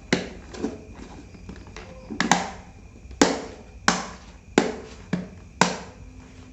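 A series of sharp plastic clicks and snaps, about seven at irregular intervals, as the laptop's bottom cover is pressed back on and its clips snap into place.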